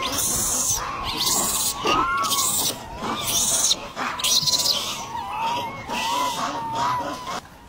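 Short animal calls repeating, each rising and falling in pitch, with recurring bursts of hiss.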